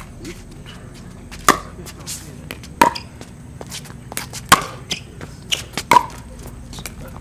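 A pickleball rally: a paddle striking the plastic pickleball four times, about a second and a half apart, each a sharp, briefly ringing pop, with fainter taps in between.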